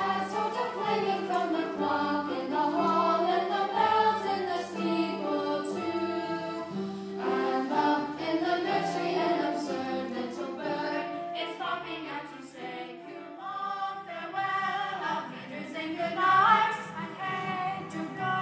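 A group of young voices singing a musical-theatre number together, with a held low note underneath.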